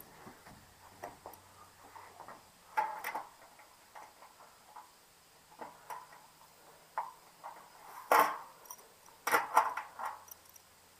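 A small crescent wrench clicking and tapping on the nuts and bolts of a patio heater's sheet-metal reflector as they are tightened. Scattered light clicks, with louder metal knocks about three seconds in, at eight seconds, and a cluster near the end.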